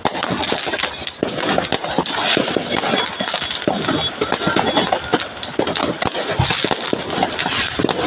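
Fireworks crackling: a dense, continuous run of rapid sharp pops and crackles.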